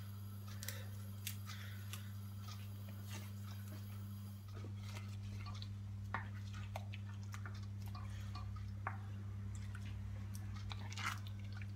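Wooden spoon stirring chunky tomato soup with fresh basil in an enamelled cast-iron pot: soft squelches and light clicks of the spoon against the pot, over a steady low hum.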